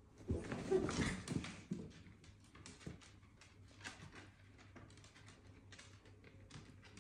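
A short, loud animal scuffle lasting about a second near the start, then the mini dachshunds' claws clicking on bare wooden floorboards as they walk about.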